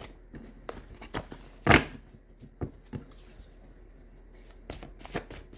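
Tarot cards being handled: scattered light clicks and rustles, with one louder sharp snap about two seconds in and a short flurry near the end.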